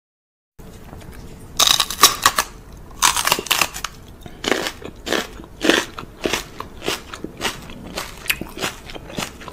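A person biting and chewing something crunchy: crackly bites in the first few seconds, then steady crunching chews about every half second.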